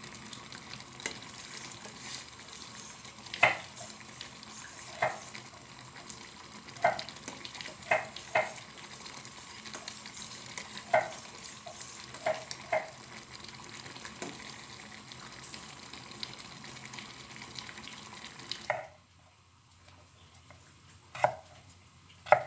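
Sago boiling in a stainless steel saucepan on a gas burner: a steady bubbling hiss, with a metal spoon stirring and clinking against the pan every second or two. Near the end the simmering stops and a knife knocks once or twice on a wooden cutting board, cutting sweet potato.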